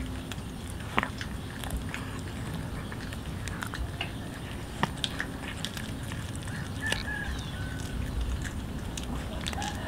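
A cat chewing and biting a raw fish head, with scattered sharp clicks of its teeth on the fish.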